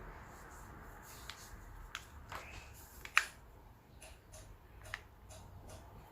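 Faint, scattered sharp plastic clicks of a transformable puzzle cube being twisted and folded by hand, the loudest about three seconds in.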